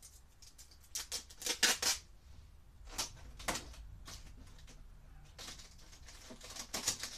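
Clear tape being handled and pressed onto a cardboard box: an irregular series of short crackles and rips, thickest near the end.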